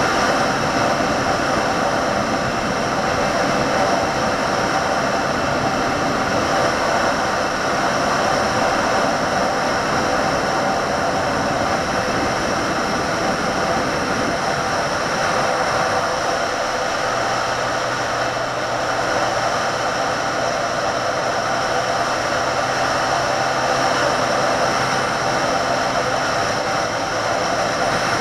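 Benelli 150S motorcycle's single-cylinder engine running at a steady cruise, with wind rushing over the mounted camera's microphone.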